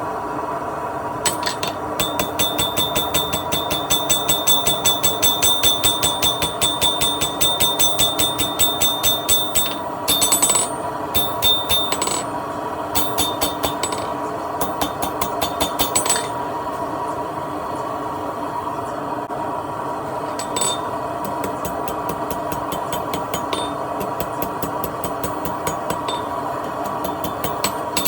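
Blacksmith's hammer striking hot steel on an anvil in a long fast run of ringing blows, then shorter bursts, a pause of a few seconds past the middle, and scattered blows near the end: shouldering the bar with half-face blows to forge an arrowhead. A steady hum runs underneath.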